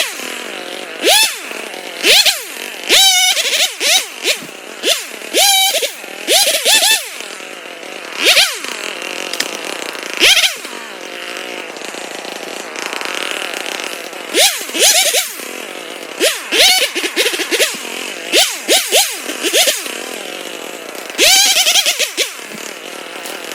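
Husqvarna 572XP two-stroke chainsaw revved in short bursts again and again, each burst rising in pitch and dropping back to idle between, about one every one to two seconds.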